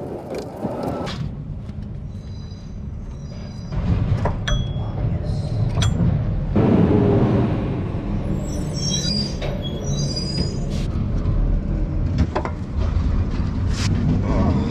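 Steady loud rumbling noise with scattered sharp metallic clicks and clinks, as tools work a power steering pump bolt loose.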